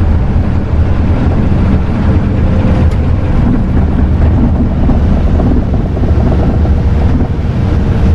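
Loud, steady rumble inside a tour coach driving at highway speed: engine and road noise, with wind buffeting the microphone.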